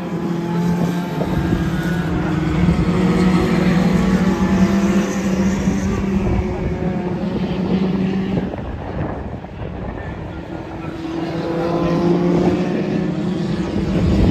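Engines of several small hatchback Junior Rods race cars running hard in a pack around a short oval, a steady multi-engine drone. It dips about halfway through and swells again near the end as the pack comes back round.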